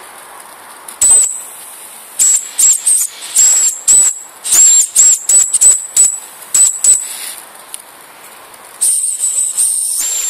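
Mamod TE1a model steam engine giving a series of short, irregularly spaced, high-pitched hissing bursts of steam. About nine seconds in, it changes to a steady hiss.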